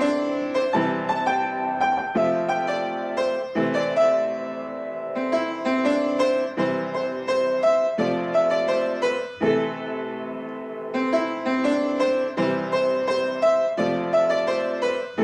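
Background piano music: a gentle melody of struck notes and chords.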